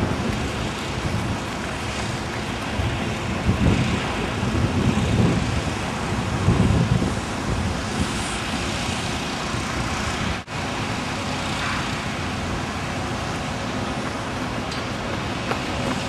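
Steady outdoor background noise with low rumbling swells in the first several seconds, cutting out for an instant about ten seconds in.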